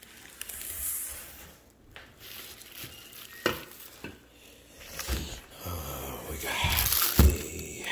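Plastic wrap and packing paper crinkling and rustling as parts are handled in a cardboard box, busier toward the end, with a soft thump near the end.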